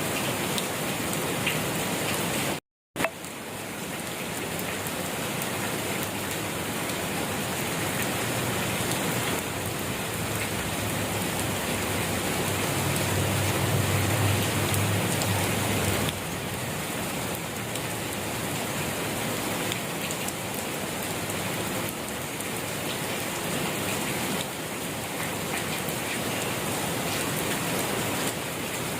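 Steady rain falling on a surface, a dense even patter of drops. It cuts to silence for a split second about three seconds in. A low rumble swells and fades in the middle.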